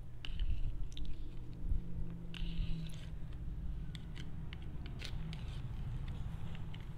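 Close-miked chewing of a mouthful of instant noodles, with many small sharp mouth clicks, over a low steady hum.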